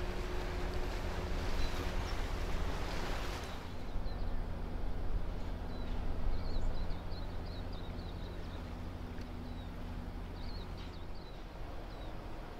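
Low, steady drone of the diesel engines of a departing cargo ship and its escort tug. A rushing hiss over it cuts off sharply about three and a half seconds in, and after that small birds chirp now and then.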